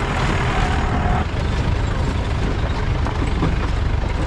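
Jeep engine running under load as it climbs a rough off-road track, with a steady low rumble and scattered rattles and knocks from the bumpy ride. A faint steady whine stops about a second in.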